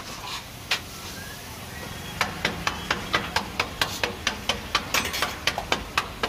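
A rapid, regular run of sharp knocks, about four a second, beginning about two seconds in, like a metal kitchen utensil striking at a street food stall. A single knock comes a little under a second in, over a faint background hiss.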